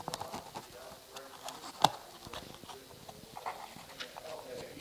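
Handling noise of hands fumbling a leather bracelet's knot through its loop: irregular small clicks and rustles, with one sharp click just under two seconds in.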